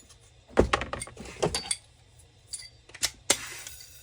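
Small metal starter parts of a Stihl cut-off saw clinking and knocking as they are handled during reassembly, in a quick cluster of clicks in the first two seconds and a few more clicks near the end.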